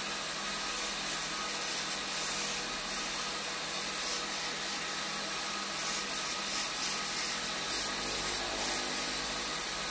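Wood lathe running while a hand-held chisel cuts the spinning wooden blank: a steady hum under the rough scraping hiss of the cut, which swells in short pulses in the second half.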